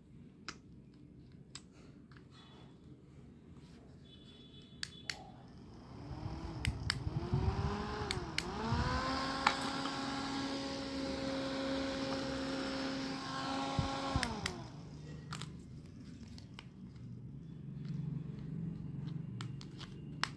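Small motor of a Le-bon F-30 handheld rechargeable mini fan whirring after its battery is fitted for a test run. About six seconds in its hum rises, dips and rises again, holds a steady pitch for about five seconds, then drops away as the fan is switched off. There are light plastic clicks and handling before and after.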